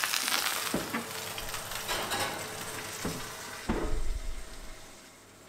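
Freshly seared chicken breast sizzling in a hot heavy-based pan as it goes into the oven, with a couple of sharp clicks of metal and a low thump about three and a half seconds in as the oven door shuts; the sizzle then fades away.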